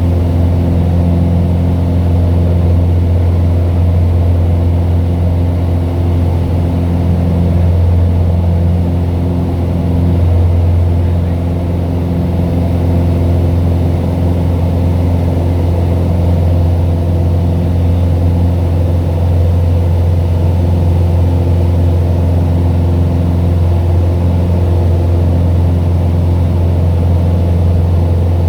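Cessna 182's piston engine and propeller droning steadily, heard from inside the cabin during the climb after takeoff.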